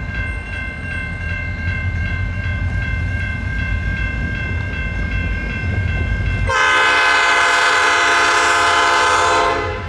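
Diesel locomotive rumbling low, then one long horn blast about two-thirds of the way through, held for about three seconds before cutting off.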